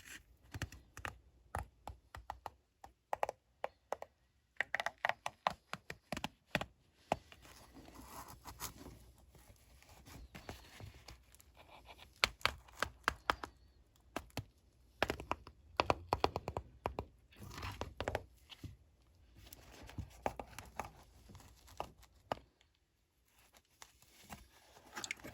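Hand work on a shoe upper with its sole removed: irregular tearing, scraping and clicking as old sole remnants and stitching are pulled and cleaned off the edges.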